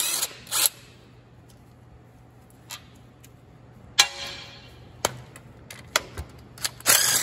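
Wrench and socket work on the steel PTO housing bolts of an Allis-Chalmers WD45 tractor: scattered metal clicks and knocks, with one sharp clank about four seconds in that rings briefly, and a short rattling burst near the end.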